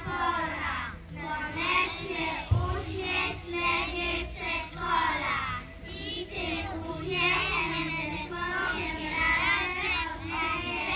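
A group of children singing together in unison, with a short thump about two and a half seconds in.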